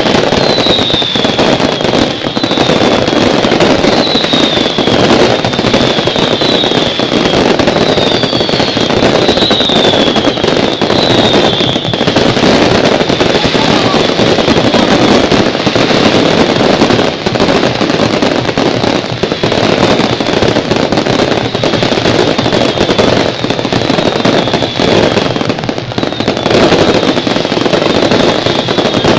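Fireworks going off in a dense, continuous crackling barrage. Short falling whistles repeat about once a second through the first twelve seconds, fainter later.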